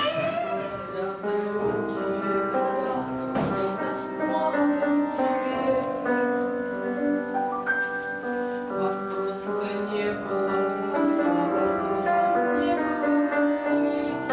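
Piano playing, with a woman singing along.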